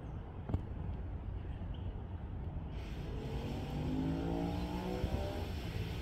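A low rumble throughout. About halfway through, a motor vehicle engine hum comes in and rises slowly in pitch for two or three seconds, as when a vehicle accelerates.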